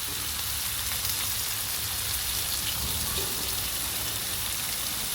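Thin-sliced ribeye steaks sizzling steadily in a hot frying pan.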